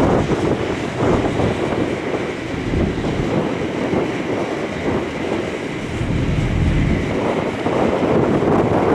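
Wind buffeting the microphone: a loud, gusty low rumble that swells and eases every second or two.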